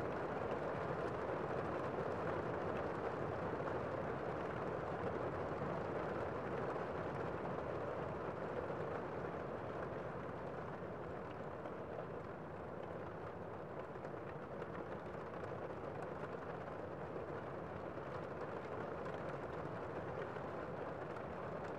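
Gentle rain falling steadily, a dense, even hiss with no distinct drops standing out; it eases slightly in level around the middle.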